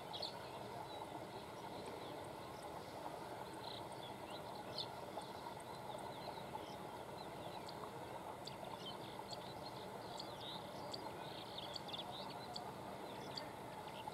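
Small birds chirping, many short high calls scattered irregularly, over a faint steady background hum.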